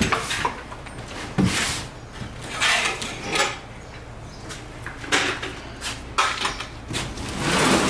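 Cardboard appliance boxes being handled and shifted: irregular scrapes, rustles and knocks, with a sharp knock about one and a half seconds in and a longer scraping rush near the end.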